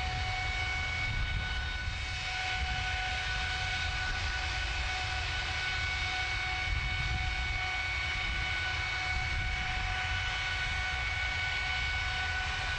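GE90-115B high-bypass turbofan running steadily at full power on a test stand, held at its triple red line (fan speed, core speed and exhaust gas temperature all at their limits): a deep, steady jet noise with several high, steady whining tones on top.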